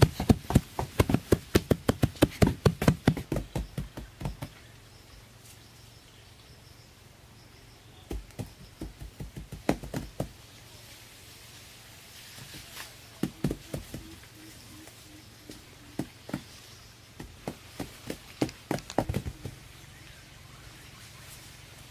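Repeated sharp knocks: a fast, regular run of about four a second for the first four seconds, then, after a pause, shorter and sparser runs of knocks.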